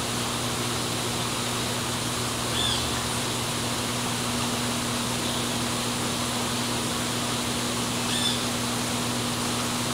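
Steady hiss with a low, even hum underneath, and a bird giving a short high call twice, a couple of seconds in and again near the end.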